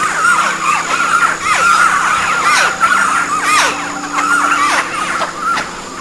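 A colony of Montezuma oropendolas calling: many short, rising-and-falling chirping calls overlapping in a dense, continuous chatter.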